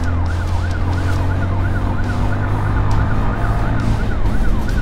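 Fast yelping siren rising and falling about three times a second, over the steady drone of a moving motorcycle's engine.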